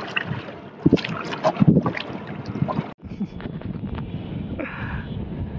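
Wind buffeting the microphone over water lapping around a rowboat, with uneven gusts and knocks for about three seconds. After a sudden cut, a steadier rush of wind and water follows.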